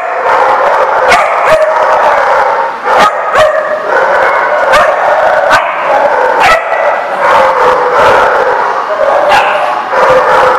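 Several dogs barking and yipping at once, a loud continuous din with sharp single barks standing out every second or so.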